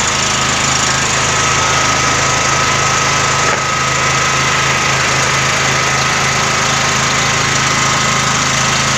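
Excell SF7000DXE 5000-watt portable generator engine running steadily, just after being started.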